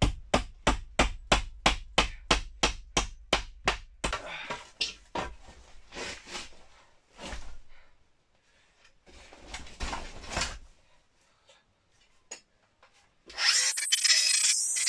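Handsaw cutting through a wooden board in quick, even strokes, about four or five a second, then a few slower, uneven strokes. About a second and a half before the end, a circular saw starts and runs loudly.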